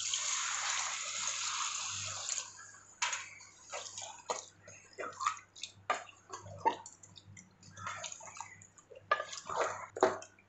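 Water poured from a cup into a pan of masala-coated chicken pieces, a steady pouring rush for about two and a half seconds. It then stops and gives way to irregular clicks and scrapes of a spoon in the pan as the curry is stirred.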